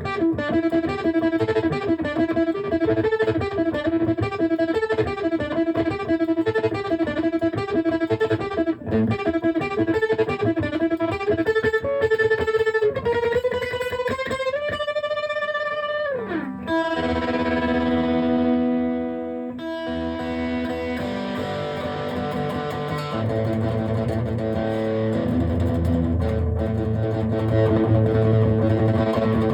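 Electric guitar played through a homemade overdrive pedal built from a broken cassette player: a quick picked single-note phrase, then a note bent up and held that slides down about halfway through, then sustained ringing chords.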